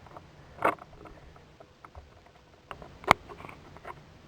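A few scattered clicks and knocks of small hard objects being handled. There is a louder knock about two-thirds of a second in, and a sharp, louder click about three seconds in.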